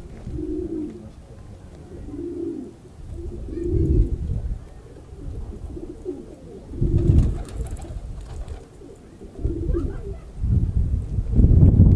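Domestic pigeons cooing, low coos repeating about once a second, with a heavier low rumble near the end.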